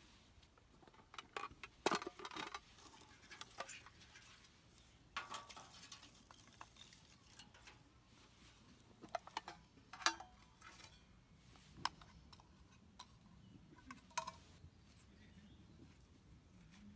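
Light, scattered clicks, taps and short rustles of small objects being handled, with the sharpest clicks about two seconds and ten seconds in.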